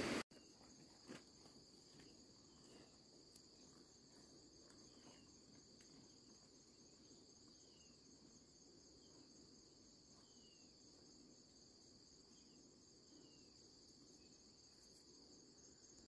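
Faint, steady high-pitched insect chorus trilling without a break, with a few short falling chirps scattered through it and a soft knock about a second in.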